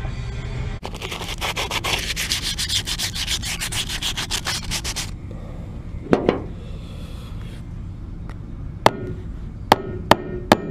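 Sanding on a steel ATV wheel rim, quick rapid strokes for about four seconds. Then a single knock, and near the end a string of sharp hammer taps on the wheel.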